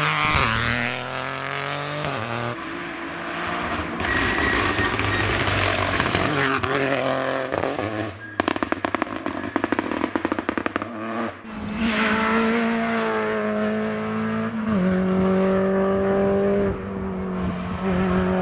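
Rally car engines passing on a tarmac stage in several short edited shots, revving up through the gears and dropping revs between them. Around the middle comes a rapid string of sharp cracks lasting about three seconds.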